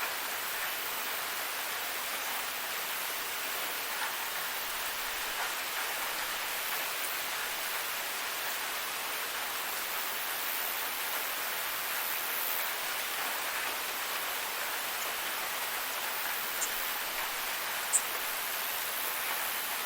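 Steady rain falling, an even hiss with no thunder, and a couple of short sharp ticks near the end.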